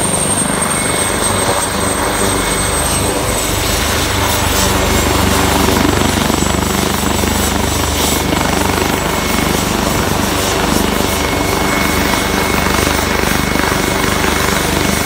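Fire department turbine helicopter running on the ground with its rotors turning, a steady loud engine and rotor noise with a high turbine whine. The whine drops slightly in pitch over the first few seconds and then holds. It is kept running while it is refilled with water.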